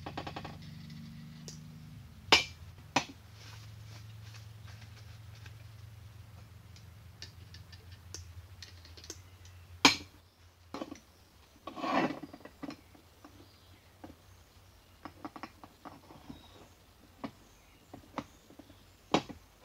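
Lathe parts and hand tools being handled and set down on a wooden bench: scattered clicks and metal-on-wood knocks, the sharpest a couple of seconds in and about ten seconds in, then a rustly stretch and lighter ticks, over a faint steady low hum that fades out about halfway.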